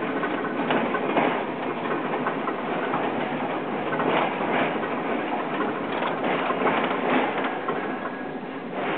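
Old tram running on its rails: a steady running noise with irregular knocks from the wheels and car.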